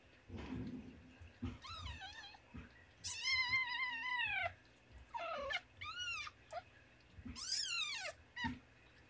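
Newborn kittens squealing and mewing: about six high, thin cries, each arching up and falling in pitch, the longest lasting over a second, with short soft bumps between them. The cries come as an adult cat licks the kittens' bellies and rears to make them pee and poop.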